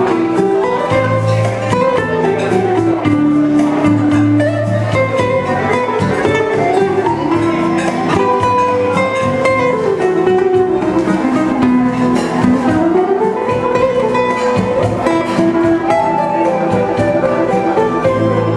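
Instrumental music from a live duo: a cutaway nylon-string classical guitar picked steadily, under a held melody line that glides smoothly up and down between notes.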